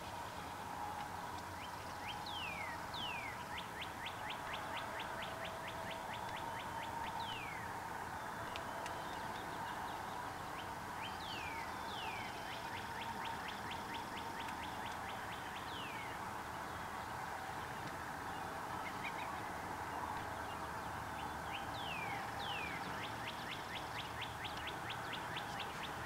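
A songbird singing a repeated song three times: two quick down-slurred whistles, then a fast, even trill lasting a couple of seconds. Single down-slurred notes come in between, over a steady faint hum.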